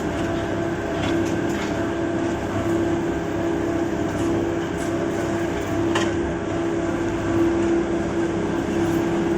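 QT4-15 automatic concrete block making machine running: a steady mechanical hum with one strong constant tone, and a few short clicks from the machinery.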